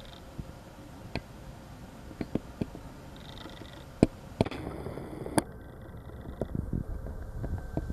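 Newborn macaque giving a short, high squeal a little after three seconds in, against scattered sharp clicks and knocks, two of them louder around the four- and five-second marks.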